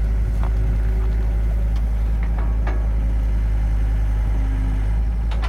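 John Deere skid steer loader's diesel engine running steadily, with a few faint clicks over it.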